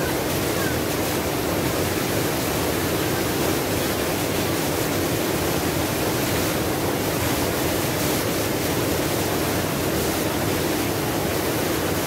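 Small waterfall pouring over boulders into a rocky plunge pool: a steady, unbroken rush of falling water.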